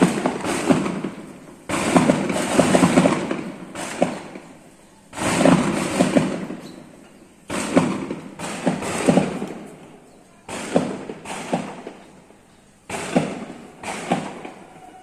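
Gunfire: about five bursts of shots a couple of seconds apart, each a rapid string of sharp cracks trailing off in an echo.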